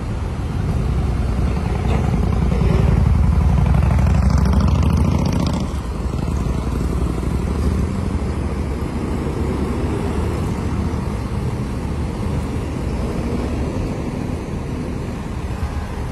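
Road traffic running by at a roadside, a steady low rumble with wind on the microphone. A nearby vehicle swells louder over the first few seconds and drops away about five and a half seconds in.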